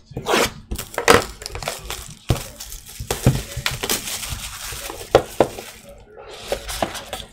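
Plastic shrink wrap being torn off a trading-card box and crinkled, a dense crackling for a few seconds in the middle. Sharp knocks and scrapes of the cardboard box being handled come before and after.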